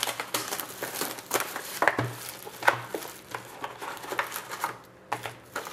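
Cardboard hobby boxes of trading cards being opened and the sealed card packs pulled out by hand: irregular crinkling and rustling with light taps and knocks.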